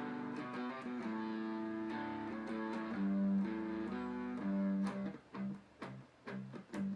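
Guitar playing a slow melody of held notes; about five seconds in it turns to short, separately plucked notes with brief gaps between them.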